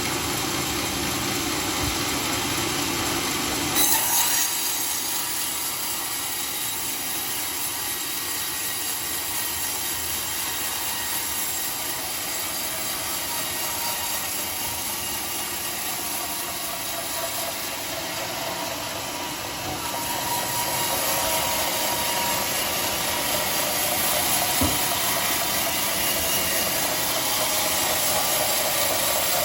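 Home-made sawmill cutting a dry teak beam. The machine first runs with a low hum, then about four seconds in the blade enters the wood and a steady high hiss and whine of sawing carries on, a little louder in the second half.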